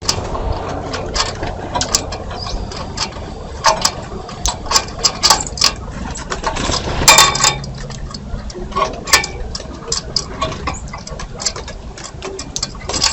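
Birds feeding at a feeder: a continual run of irregular sharp taps and clicks from pecking and scrabbling at the feeder, busiest about seven seconds in.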